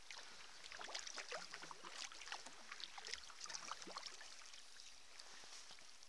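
Sea kayak paddle working calm water: faint dripping, trickling and small splashes of water off the blade, with scattered irregular drips throughout.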